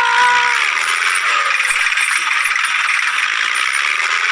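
Toy tractors' small electric motors and plastic gearboxes buzzing and rattling steadily while they pull a toy auto rickshaw out of mud on a tow rope, with a whine that drops in pitch about half a second in.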